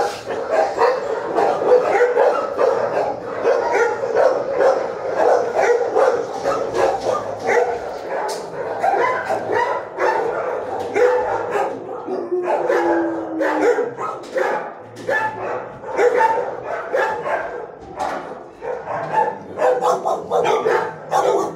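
Many dogs barking at once in shelter kennels: a continuous jumble of overlapping barks with no let-up.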